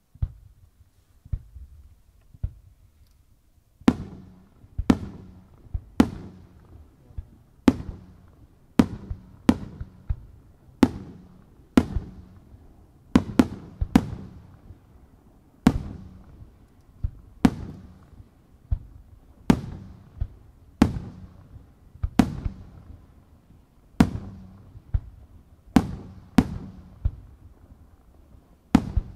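Aerial firework shells bursting. A few lighter thumps come first, then from about four seconds in a run of sharp, loud bangs roughly once a second, each trailing off in a rumbling echo.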